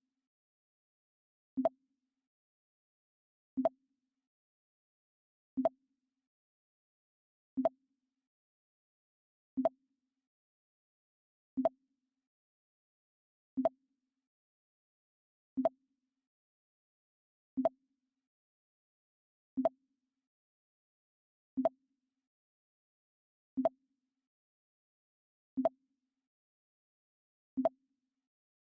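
Mac OS X 'Pong' alert sound, a short low-pitched blip repeated every two seconds, fourteen times, with silence between.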